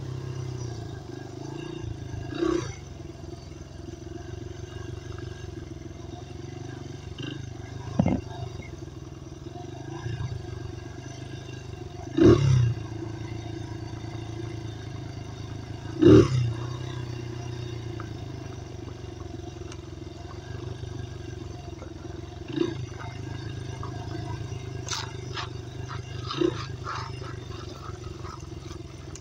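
Dirt bike engine running at a steady speed while riding, with about six loud sudden knocks from bumps spread through the ride.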